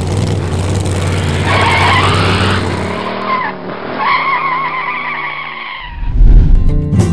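Car engine rumbling, then tires squealing with a wavering pitch. Guitar music starts about six seconds in.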